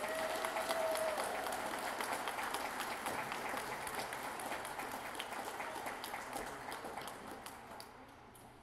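Audience applauding, the clapping loudest at the start and dying away near the end.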